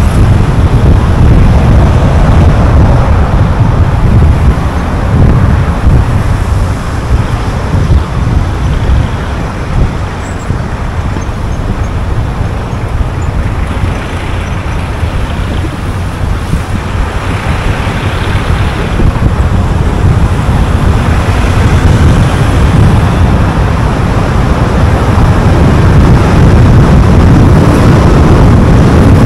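Tyre and wind noise from a car travelling at road speed, a steady low rumble that swells and eases, with a brief brighter hiss a little past halfway, as from traffic going by.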